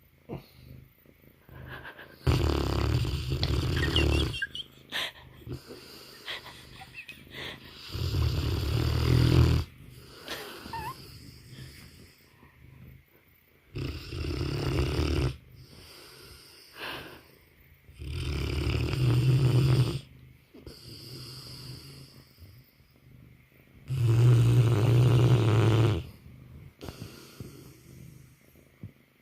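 Mastiff snoring in its sleep: five loud snores, each about two seconds long, coming about every five to six seconds.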